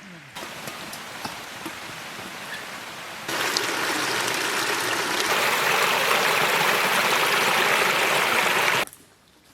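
River water rushing steadily, in two cut-together stretches: fainter with a few small clicks at first, then much louder from about three seconds in, stopping abruptly near the end.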